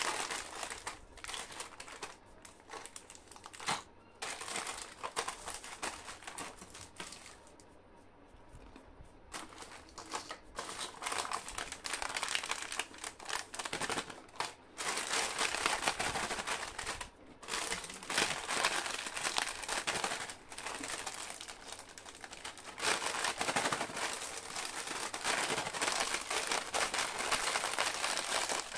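Crinkling of plastic snack packets handled and squeezed in the hands, in irregular spells, quieter for a few seconds in the first third and busier in the second half.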